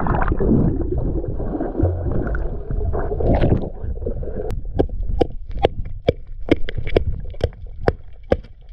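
Underwater, muffled gurgling and rushing of water at first. Then, from about halfway, a rapid run of sharp knocks, about three a second, as an axe strikes oysters cemented to a concrete bridge piling.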